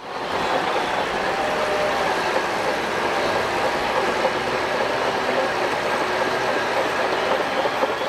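Shantui DH17 crawler bulldozer working in sand: engine and steel tracks running steadily, with a few faint whining tones.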